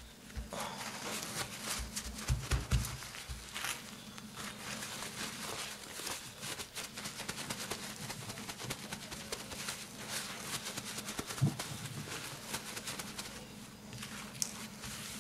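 Paper kitchen towel rustling and crinkling as hands press and rub it over a salt-cured duck breast to blot it dry, with a few soft low bumps about two and a half seconds in.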